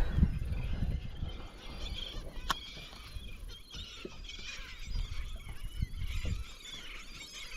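A flock of seabirds feeding over the water, with many overlapping calls throughout and a low rumble underneath. A single sharp click about two and a half seconds in.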